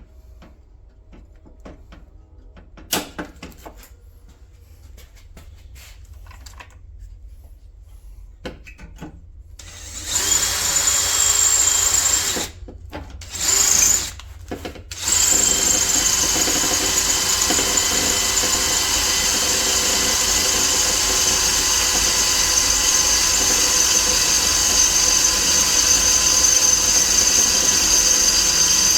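A power drill boring a bolt hole through metal: a few light clicks while it is set in place, then about ten seconds in the drill starts, runs in two short spurts, and then runs steadily with a high whine.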